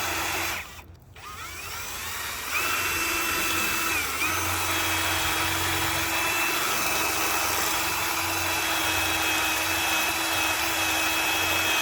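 Power drill drilling a rail joint bar: a short run, a brief stop about a second in, then the motor spins up with a rising whine and runs steadily under load until near the end.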